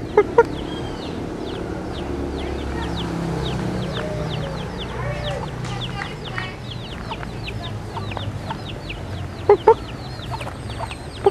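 Chickens: a hen gives two loud short double clucks, one near the start and one near the end, over a steady stream of many high, falling chirps.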